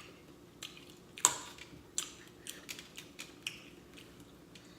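Close-up mouth sounds of eating: chewing and lip smacking heard as a scatter of short, sharp, wet clicks, the loudest about a second in.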